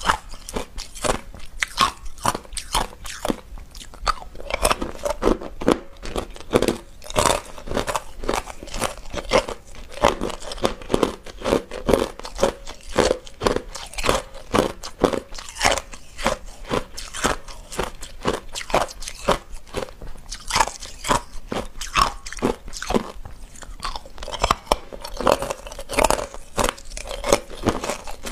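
Hard clear ice being bitten and chewed close to a lapel microphone: a steady run of sharp crunches, several a second.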